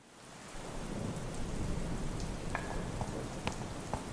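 Steady rain falling, fading in over the first half second, with a low rumble underneath. From about two and a half seconds in, single sharp drops hit a surface.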